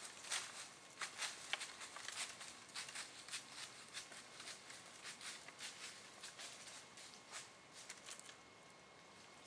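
Whitetail buck rubbing its antlers on a tulip poplar stump sprout: faint, irregular rustling and clicking of twigs and leaves, several a second, thinning out about eight seconds in.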